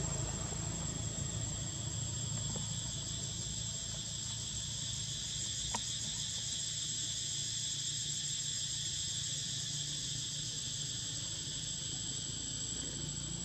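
Steady high-pitched chorus of insects buzzing, with a single click about halfway through.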